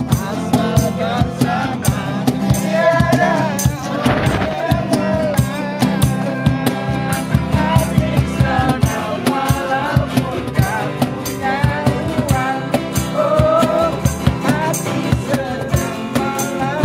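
Men singing together to two strummed acoustic guitars, a steel-string and a nylon-string, with percussion keeping a steady beat.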